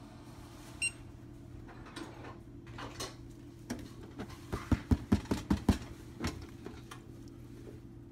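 Anova sous vide circulator running with a steady low hum, giving one short beep about a second in as its control is pressed. Midway comes a quick run of sharp knocks and rattles as the plastic water-bath container and its cover are handled.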